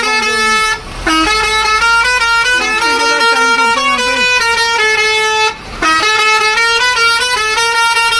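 Truck's musical multi-note horn playing a stepped tune over and over, loud and shrill, breaking off briefly twice.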